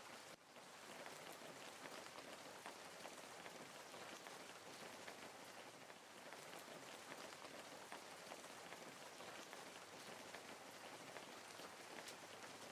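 Wood fire crackling faintly: a soft, steady hiss of burning with many small, irregular pops and snaps.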